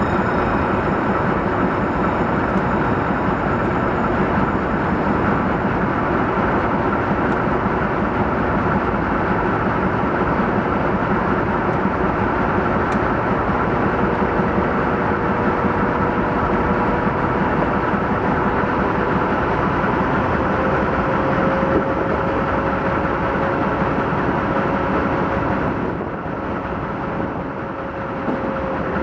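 Tourist train running along the track: a steady rumble of wheels on rails and machinery. A thin tone comes in about halfway and rises slightly, and the noise eases a little near the end.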